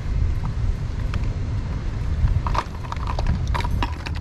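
Wind rumbling on the microphone, with a quick run of sharp clicks and knocks in the second half.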